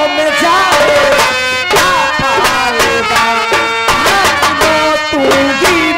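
Live Indian folk music: a wavering melody over a quick, steady hand-drum beat.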